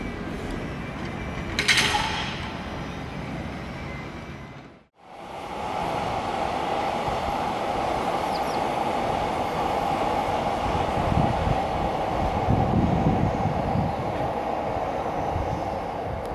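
Train running on the Odakyu line: a steady rolling rumble with a brief sharp squeal about two seconds in. After a short break, a red Odakyu Romancecar express passes along the raised track with a steady running hum, the low rumble heaviest a little past the middle.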